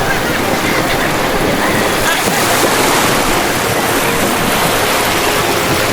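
Ocean surf breaking and washing in, a steady loud rush of waves.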